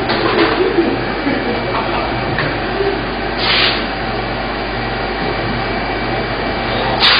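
Steady machine hum of a CNC workshop, with two short sharp hisses, one about three and a half seconds in and one near the end.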